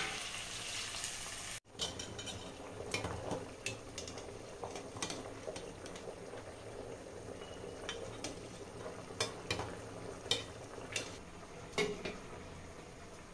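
Masala sizzling softly in a clay cooking pot while a spoon stirs it, scraping the pot and clinking against it many times at irregular intervals.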